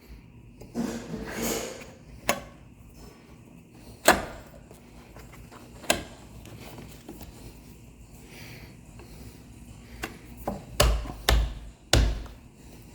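Irregular sharp knocks and clacks of tools and hardware being handled against a wooden door jamb. A short rustle comes about a second in, the strongest knock is about four seconds in, and a quick run of loud knocks comes near the end.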